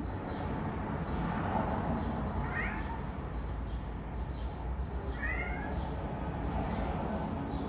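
Steady background noise coming in through an open doorway, with two faint, short chirp-like calls, one rising about two and a half seconds in and one falling about five seconds in.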